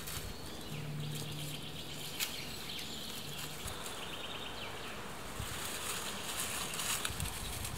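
Dry twigs and sticks rustling and crackling as they are handled and laid against a stick-and-moss shelter, louder in the second half. An insect buzzes past near the start, over insects chirping.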